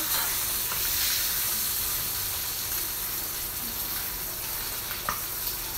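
Food frying in oil in a pan: a steady sizzling hiss that eases slightly after the first second or two.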